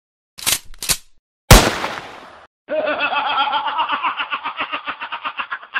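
Two quick swishes, then a sharp, loud hit with a fading noisy tail, like a comic punch sound effect, about a second and a half in. A fast laugh follows, pulsing evenly at about nine beats a second until near the end.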